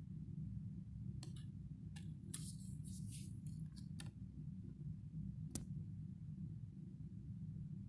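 A folded certification card being handled and opened in the hand: a few short clicks and rustles in the first half, then one sharp click a little past the middle, over a steady low hum.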